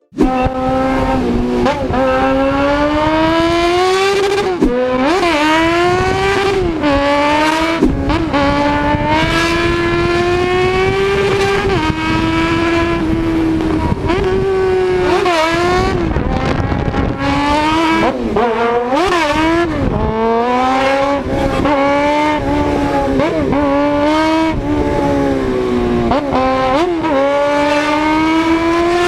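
Loud vehicle engine and exhaust held at high revs, its pitch mostly steady with many quick dips and swoops as the throttle is blipped or the gears change.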